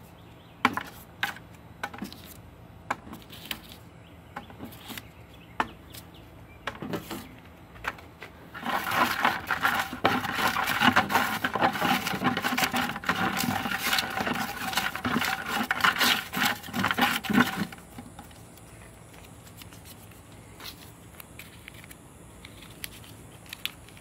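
Folded paper slips handled with scattered light taps and clicks, then mixed together as a drawing's entries for about nine seconds: a dense rustling, rattling clatter of paper. Quieter handling follows.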